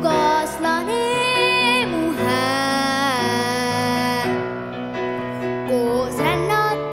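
A young girl singing in Estonian into a microphone, accompanied by piano. About two seconds in she holds one long note with vibrato for about two seconds.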